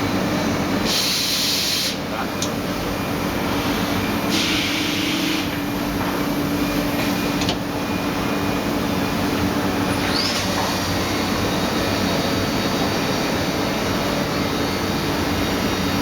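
Mikron HSM 600 U five-axis high-speed milling machine running with a steady hum. Two short bursts of hissing come about a second in and again about four and a half seconds in.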